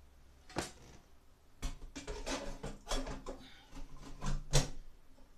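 Clicks, clunks and rattles of a Broan 655 bath fan/heater's sheet-metal motor plate being handled and fitted into its ceiling housing. One sharp click comes early, then an irregular run of knocks, the loudest just before the end.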